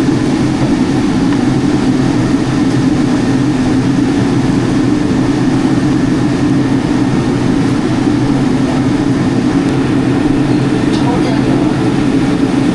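A steady, loud mechanical drone with a strong low hum, unchanging throughout.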